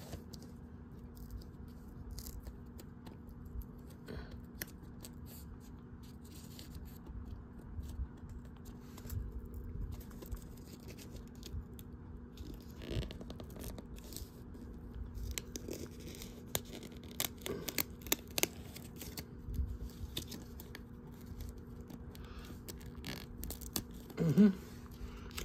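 Scattered clicks, scrapes and rustles of a VHS tape case being opened and handled, with paper tearing as an attached coupon rips.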